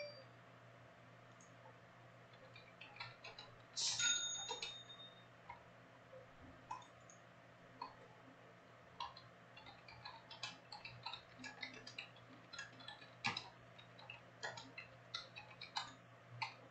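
Faint, irregular clicking and tapping of a computer mouse and keyboard, with a short ringing clink about four seconds in.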